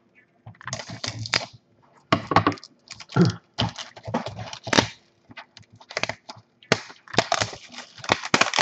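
Plastic shrink wrap crinkling and tearing as a sealed box of trading cards is unwrapped and opened by hand, in irregular rustling bursts with short pauses between them.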